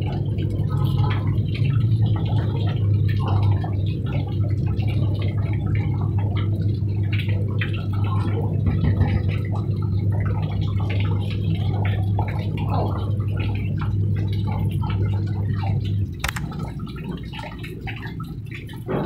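Water from a hose pipe splashing and trickling through a wooden bird cage's wire mesh as it is washed, over a steady low hum. The hum stops about sixteen seconds in, with a sharp click just after, leaving quieter dripping.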